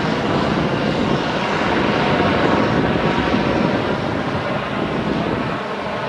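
Bell 429 twin-turbine helicopter flying past: steady rotor and turbine noise, loudest about two and a half seconds in and easing slightly near the end as it moves away.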